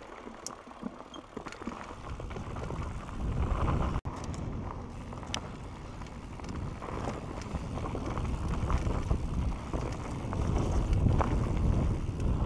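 Santa Cruz Bronson mountain bike descending a dirt singletrack at speed: wind buffeting the microphone and the tyres rolling over dirt, with scattered rattles and knocks from the bike, getting louder as speed builds.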